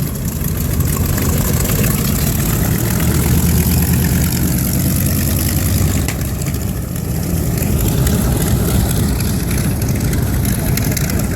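Grumman TBF Avenger's 14-cylinder radial engine running at idle on the ground, a steady low rumble with propeller noise.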